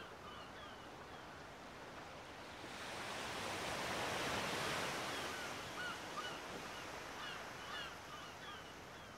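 Sea surf swelling into a wash of waves that is loudest about four to five seconds in, then eases. Short, repeated bird calls sound over it.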